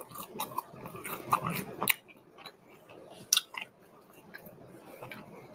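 Close-up chewing of breaded chicken tenders with ranch sauce: wet mouth smacks and clicks, thickest in the first two seconds, then a couple of sharp smacks and softer chewing.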